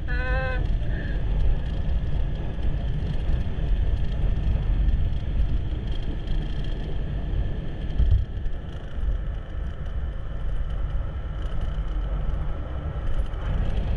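A motor vehicle on the move: a steady low rumble of engine and wind noise on the microphone. There is a short pitched sound right at the start and a single bump about eight seconds in.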